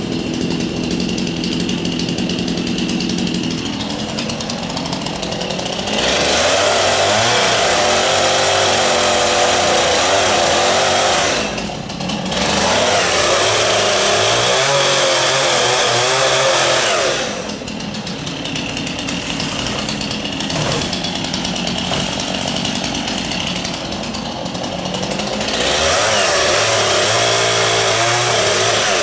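Two-stroke gasoline chainsaw idling, then opened up to full throttle three times to cut the dead orange tree's wood, its note wavering under load; it drops back to idle between the cuts, with the last burst near the end.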